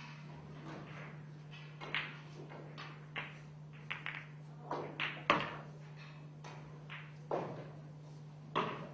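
Pool balls clicking: the cue tip striking the cue ball, balls colliding and knocking off the cushions, in a string of short sharp clacks with the loudest about five seconds in. A steady low hum runs underneath.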